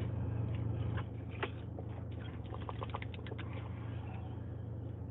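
People sipping fizzy soda over ice from glasses: faint slurps and small clicks of ice, with a cluster of quick ticks around the middle, over a steady low hum inside a car.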